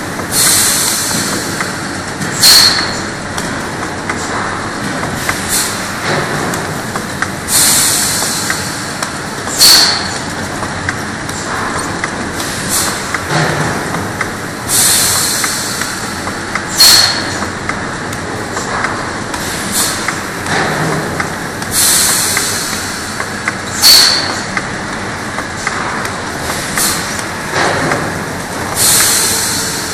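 Automatic three-side labeling machine for oil bottles running: steady machine noise with small clicks, and about every seven seconds a short hiss followed about two seconds later by a sharp clack.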